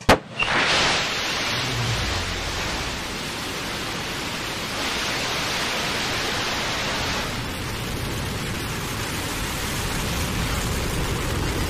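Blue Origin New Shepard rocket's BE-3 engine at liftoff: it starts abruptly with a sharp crack, then settles into a loud, steady rushing noise.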